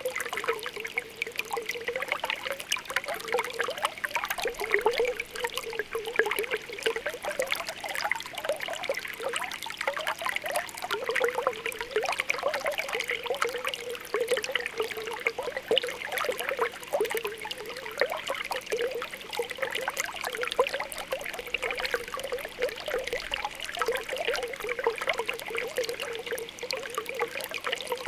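Spring water welling up from the ground, bubbling and popping continuously with small gurgles over a steady trickle.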